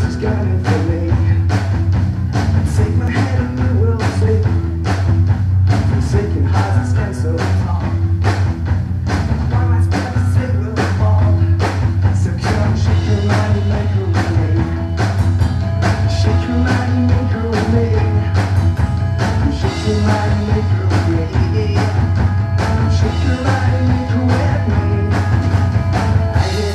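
Rock band playing live: electric guitar, electric bass and drum kit, with a steady drum beat over a loud bass line.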